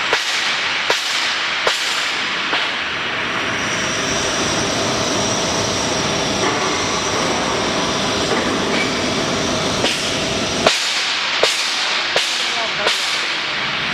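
Industrial machinery running with a steady, loud mechanical noise. A run of sharp clacks, about one every 0.8 s, comes at the start and again near the end, and a thin high whine sets in a few seconds in.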